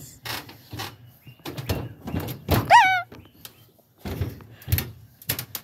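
Irregular knocks and thuds on a metal ramp, with a short high squeal that rises and falls about halfway through.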